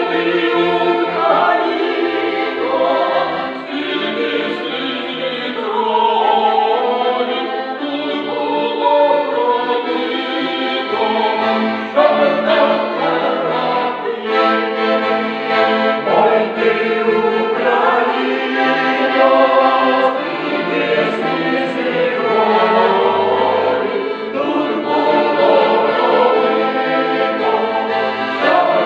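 Mixed choir of women's and men's voices singing a song together, accompanied by an accordion.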